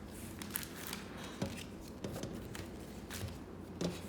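Trading cards being handled and shuffled: soft rustling with a few light clicks and taps.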